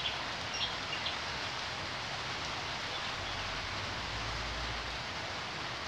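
Steady rain falling, an even hiss, with a few sharp drop ticks in the first second.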